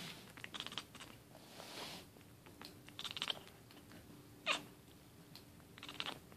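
A 15-week-old Siamese kitten squeaking: about five short, high-pitched squeaky meows, the loudest one about halfway through falling sharply in pitch.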